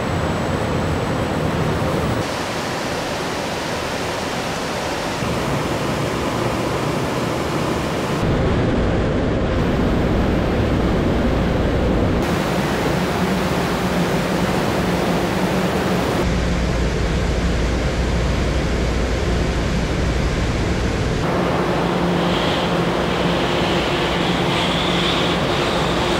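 Steady assembly-plant noise of machinery, air and a low hum, changing abruptly every few seconds. In the middle it becomes a wide hiss of water spraying over a vehicle in a leak-test booth.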